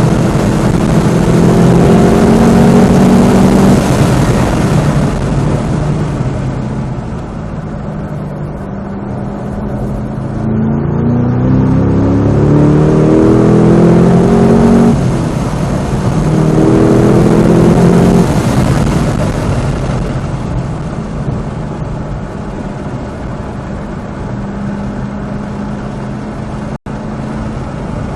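2025 Cadillac CT5-V Blackwing's supercharged 6.2-litre V8 at full track pace: revs held high at first, then falling away for several seconds, climbing again under acceleration with a quick upshift partway through, then settling to a lower, steadier pull. The sound cuts out for an instant near the end.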